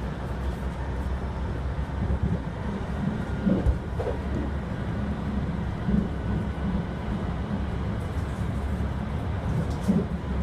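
Subway train running, heard from inside the car: a steady low rumble with a few short louder knocks.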